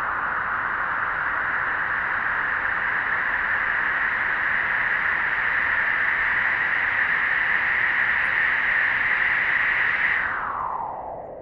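A long howling gust of storm wind, its whistling pitch slowly rising and then dropping away sharply as the gust dies near the end.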